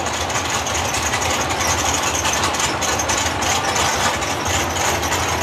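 Nitrous drag cars' engines idling at the start line, a steady low rumble.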